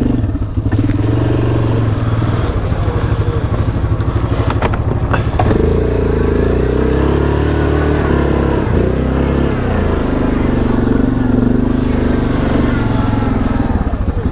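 Yamaha Grizzly 700 ATV's single-cylinder four-stroke engine running under the rider over rough muddy ground, its pitch shifting with the throttle about five and a half seconds in and again near ten seconds, with a few brief clicks of the machine jolting in between.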